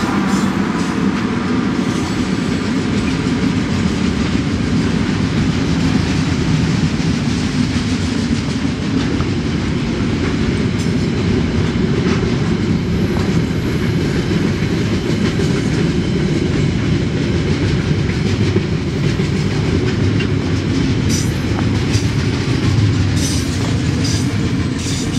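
Freight train wagons rolling past close by: a steady, loud rumble of steel wheels on rail, with sharp clickety-clack clicks over the rail joints in the last few seconds.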